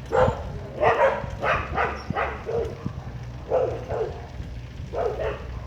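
Dogs barking repeatedly, several short barks in quick runs with pauses between them.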